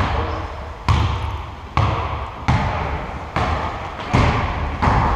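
A basketball bounced over and over on the court floor in an even rhythm, a little more than one bounce a second.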